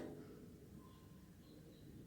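Near silence: room tone, with a few faint, brief high chirps.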